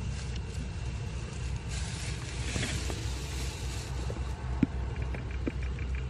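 Steady low engine hum, with a brief rustle about two to three seconds in.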